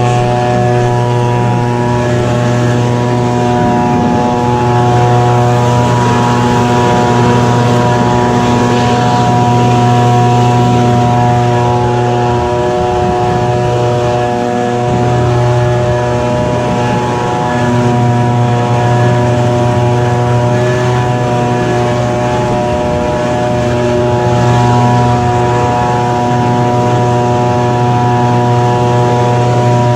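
Echo PB-2520 handheld leaf blower's small two-stroke engine running steadily, its pitch dipping briefly a few times.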